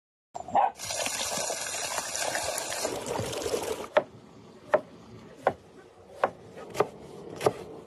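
Hot water running from a brass tap in a steady stream for about three seconds, then a cleaver chopping vegetables on a wooden cutting board: six sharp knocks about two-thirds of a second apart.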